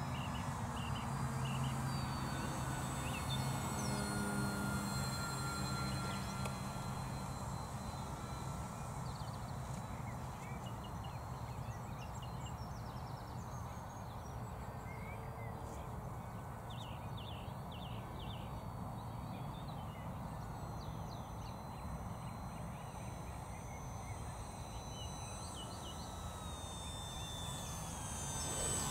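Faint, steady hum of a Durafly Tundra electric RC plane's motor overhead, with birds chirping. The sound grows louder near the end as the plane comes in low to land.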